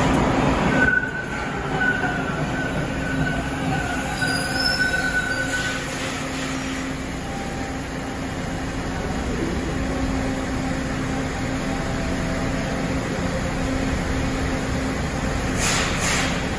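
Bombardier T1 subway train pulling into the platform and braking to a stop, with a high wheel squeal for several seconds as it slows over a steady low hum from the train. A short burst of hiss comes near the end.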